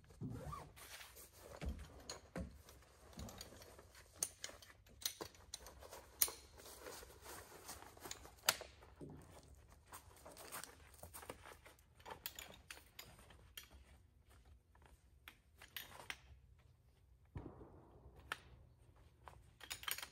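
Camping gear being handled: rustling of a fabric carry bag with scattered light clicks and knocks of folding metal legs. The handling is busy for the first half, then thins to occasional clicks.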